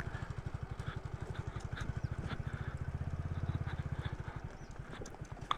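Motorcycle engine running slowly or idling, an even rapid pulse of about a dozen beats a second, growing a little fainter near the end.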